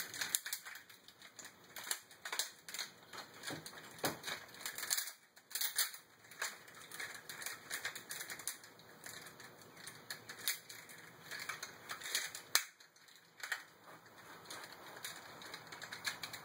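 Plastic joints and parts of a Beast Wars Megatron action figure clicking and clacking as it is rapidly twisted and folded by hand during a transformation, an irregular run of quick clicks with two brief lulls.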